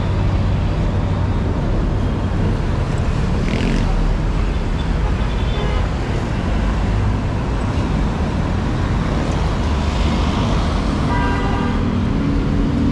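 Roadside traffic on a busy multi-lane road: a steady rumble of passing cars and motorcycles, with a brief vehicle horn about eleven seconds in.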